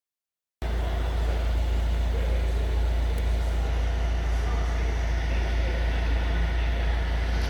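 2017 Vauxhall Vivaro van's engine running steadily at idle, a constant deep rumble that starts suddenly a little way in.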